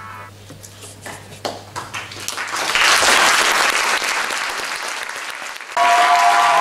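Audience applause for performers taking their bow. It starts as scattered claps, builds into full applause about three seconds in, and jumps suddenly louder near the end.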